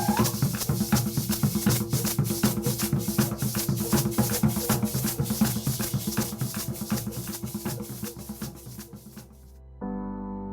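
Percussion-led music: drums and shakers play a dense, steady rhythm over low held notes, fading out. Near the end it cuts to soft, sustained keyboard-like music.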